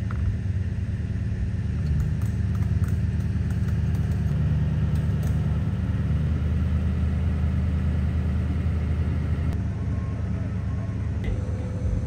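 Motor vehicle running, a steady low rumble that starts abruptly.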